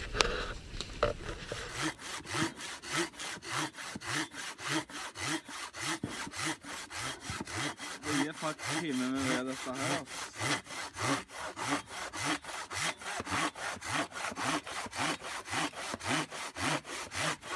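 Long-bladed hand saw cutting through the trunk of a small spruce, in steady back-and-forth strokes that start about two seconds in, with the teeth rasping in the wood on each stroke.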